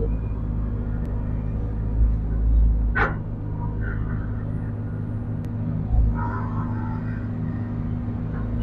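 Diesel engine of a Sumitomo SH210 long-arm amphibious excavator running steadily, heard from inside the operator's cab as the machine travels on its pontoon tracks. A short sharp noise cuts in about three seconds in.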